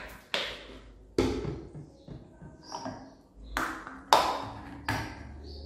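Plastic bottle and plastic funnel being set down on a stainless steel sink: about five sharp taps, each with a short metallic ring, the loudest about four seconds in.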